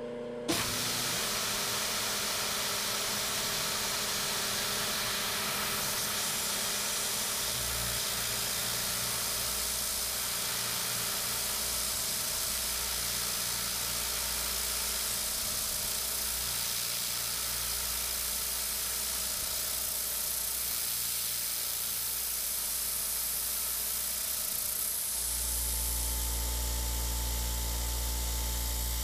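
Steady hiss of a mist-coolant spray nozzle blowing on the drill bit while a CNC milling machine peck-drills a metal plate. The hiss starts abruptly about half a second in, with the machine's low hum coming and going underneath and growing stronger near the end.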